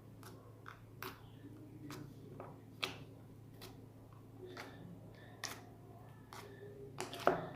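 Slime being squeezed and folded by hand close to the microphone for the click test, giving a string of sharp, irregular clicks and pops, the loudest near the end.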